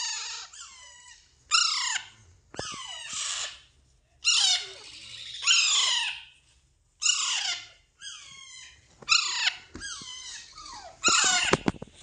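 Alexandrine parakeet chicks giving repeated begging calls while being hand-fed, harsh squawks about one a second, each falling in pitch. A few short clicks sound near the end.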